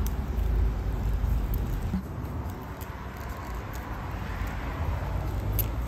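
Low rumble of a motor vehicle running nearby, easing off about two seconds in.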